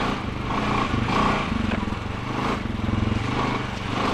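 Honda Foreman 500 ATV's single-cylinder four-stroke engine running steadily at low speed.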